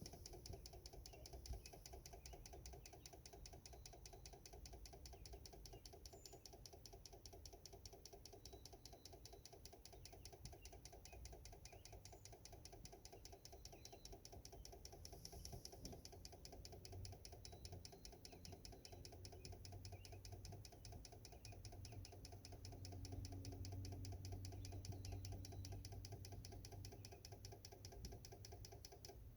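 Faint, rapid, evenly spaced tapping, several taps a second, steady throughout, with a low hum growing under it in the last few seconds.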